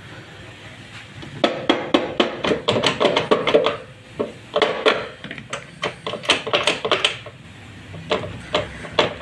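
Quick light taps of a plastic stick on a scooter's clutch (CVT) cover, several knocks a second, in two runs with a short pause about four seconds in, knocking the unbolted cover loose before it is pulled off. A few more knocks near the end as the cover is rocked by hand.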